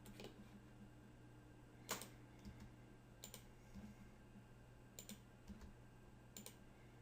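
Faint, sparse clicks from a computer mouse and keyboard, about six in all and the loudest about two seconds in, as lines are selected and deleted in a 3D modelling program, over a low steady hum.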